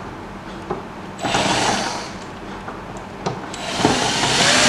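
Power screwdriver running screws into the plastic back cover of an LED TV, in two runs: a short one about a second in and a longer one starting past three seconds.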